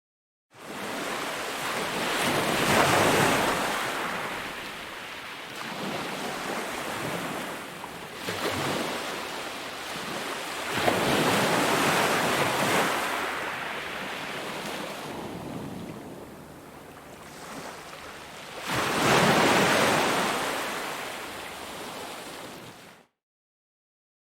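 Ocean surf: waves breaking and washing in slow swells, three big ones about eight seconds apart. The sound starts abruptly about half a second in and cuts to dead silence about a second before the end.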